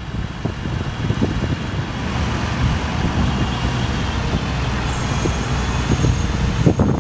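Dodge Ram 5500 bucket truck's engine running steadily to drive the Terex HR40 aerial lift's hydraulics while the boom is raised, with a faint steady whine over an irregular low rumble.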